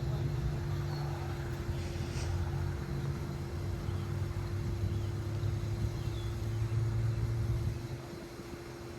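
A low, motor-like rumble with a steady hum over it; the rumble drops away about eight seconds in while the hum carries on.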